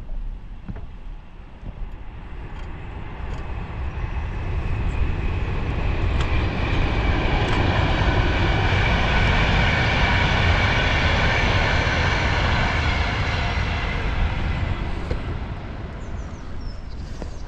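A passing vehicle that grows louder to a peak about ten seconds in and then fades, over a steady rumble of wind on the microphone.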